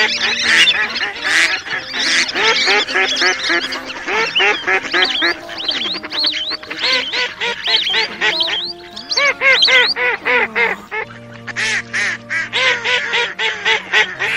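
Dense chorus of overlapping waterfowl calls, many quacking and honking notes at once, from a mixed lure recording of Eurasian coot, wild duck, garganey and lesser whistling duck calls. About eleven seconds in it thins to quick, short repeated calls.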